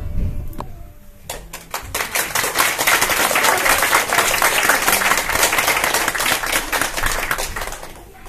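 Audience applauding: a few scattered claps about a second in, swelling into dense, steady clapping that thins out near the end.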